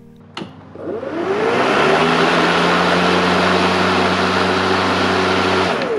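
A click, then the EGO 56V cordless lawn mower's electric motor and blade spin up, rising in pitch over about a second. It runs at a steady pitch with a hum over a rush of air from the blade, then winds down with falling pitch near the end.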